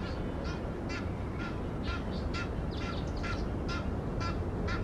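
A bird calling over and over in short, harsh, even calls, about two a second, over a steady low rumble.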